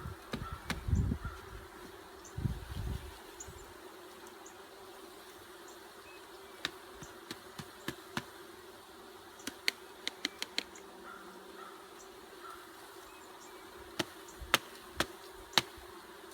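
A mass of honeybees buzzing with a steady hum, as a freshly dumped package colony settles into the hive. Low rumbles come in the first few seconds, and sharp clicks and taps are scattered through the rest, a cluster around the middle and three near the end.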